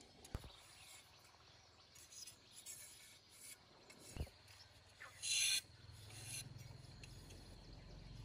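Knife blades scraping and shaving thin strips of bamboo: a few short rasping strokes, the loudest about five seconds in, with a couple of sharp taps. A low hum comes in from about six seconds.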